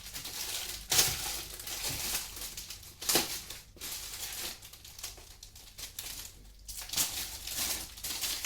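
Wrapping being pulled off a new diary, crinkling and rustling in handling, with a few sharper crackles.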